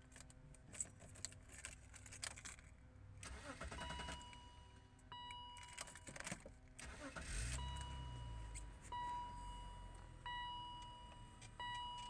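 Keys jangling and clicking in the ignition of a 2002 BMW X5, then about seven and a half seconds in a low rumble of the engine starting. An electronic beep tone sounds on and off repeatedly through the second half.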